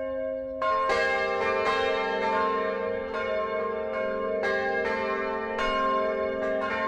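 Church bells pealing: bells struck one after another, about two strokes a second, each ringing on and overlapping the next.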